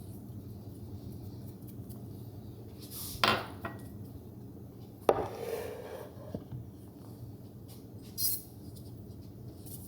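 Cutlery and dishes knocking over a steady low hum. There is a short clatter about three seconds in, a sharp clink that rings briefly about five seconds in, and a lighter knock near eight seconds.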